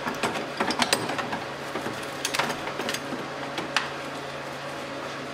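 A few light metallic clicks and rattles as the battery hold-down bracket and its rod are unscrewed and lifted off, over a faint steady hum.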